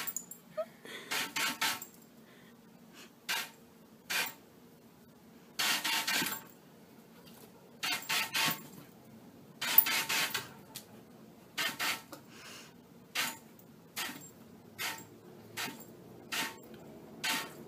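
Short, irregular rasping bursts against a window pane, roughly one a second: a dog snapping and rubbing its muzzle on the glass while hose water sprays on the other side.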